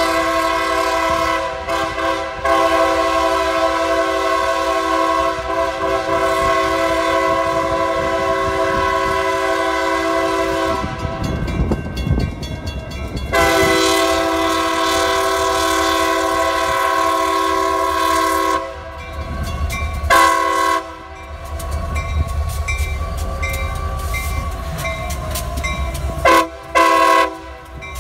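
CSX diesel freight locomotive's multi-note air horn. It sounds a long blast, then a second long blast after a short gap, a short blast, and two quick blasts near the end. Underneath, the engine rumbles as the train approaches and passes close by.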